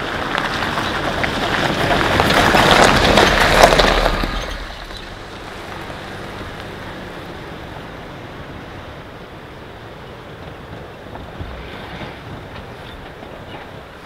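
Jeep driving along a muddy gravel trail, its tyres crunching over stones and through puddles, loudest about four seconds in, then falling away abruptly. After that, steady wind with surf from the sea below.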